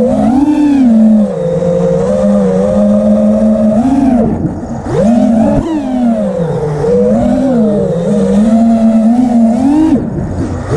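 Electric motors and propellers of an FPV quadcopter drone buzzing in flight, heard from the camera on board. The pitch rises and falls with throttle changes, dropping about four seconds in before a sharp climb, then swelling several more times.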